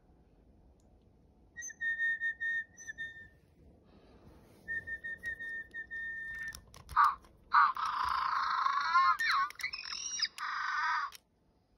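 Two spells of short whistle toots at one steady pitch. A Digi Penguins toy penguin then answers through its small speaker with a run of electronic chirps, warbles and squeaks lasting about three and a half seconds.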